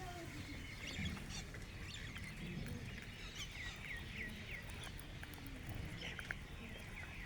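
Small birds chirping in quick runs of short falling notes, over a steady low outdoor rumble.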